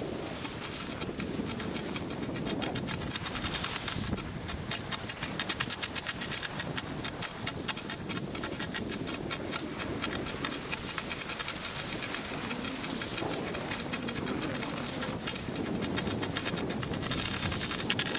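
Skis running and scraping over firm man-made snow, a dense rattling hiss that builds about two seconds in and carries on steadily. Wind rumbles on the microphone underneath.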